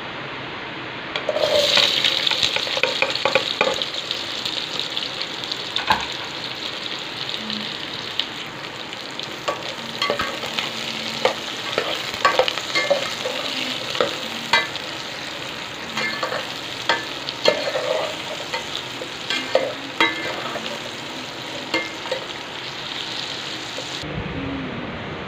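Chopped red onions hitting hot oil in a metal pot and frying with a steady sizzle, starting suddenly about a second in. The perforated metal skimmer stirs them, clinking and scraping against the pot again and again, and the sizzle cuts off suddenly near the end.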